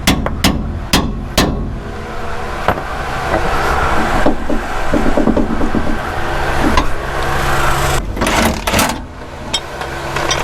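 Four sharp hammer taps in the first second and a half, driving a socket onto a chewed-up, scraped bolt head on a car's rear chassis brace. They are followed by irregular clatter and clicks of hand tools.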